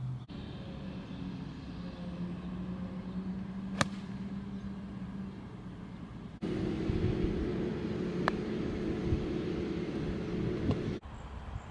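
A steady low mechanical hum, like distant traffic or machinery, with a single sharp golf-club-on-ball click about four seconds in. After a cut the hum is louder and higher, with another sharp click midway and a lighter tap near the end as a putter strikes the ball.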